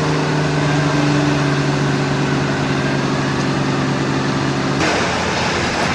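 Nissan Patrol 4x4 engine running at a steady, even pitch while the truck sits bogged in deep mud. About five seconds in, the sound switches abruptly to a rougher, noisier engine sound.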